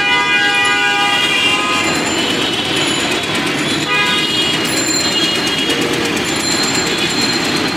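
Busy street traffic with vehicle horns honking: one long horn blast that stops about a second and a half in, then shorter toots over the steady rumble of traffic.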